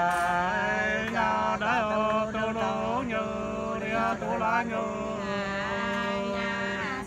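Two men singing hát sli, the Nùng antiphonal folk love song, together in long, drawn-out wavering notes with ornamented bends.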